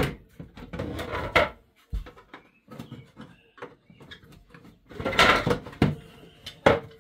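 Hard plastic sections of a cat exercise wheel being pried apart and handled: a string of clicks and knocks with scraping, a longer scraping rush about five seconds in and a sharp knock near the end.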